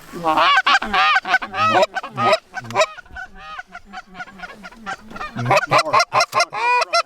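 Loud, rapid Canada goose honks and clucks, several notes a second, in two runs: one starting right away and one about five seconds in, with softer calls between.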